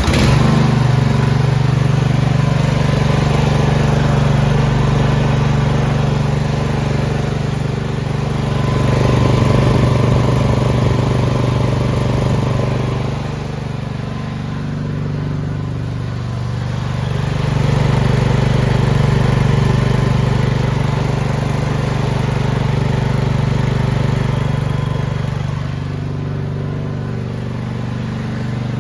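Craftsman T85 lawn tractor engine starting up and then running steadily, just after an oil change with fresh oil. Its loudness swells and eases a little now and then.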